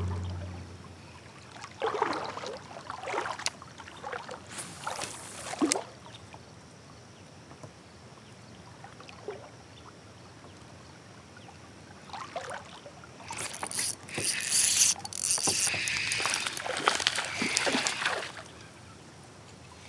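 Water sloshing and splashing in short bursts, the sound of a person wading up a shallow rocky river. It comes in two spells of a few seconds each, with quieter flowing water between.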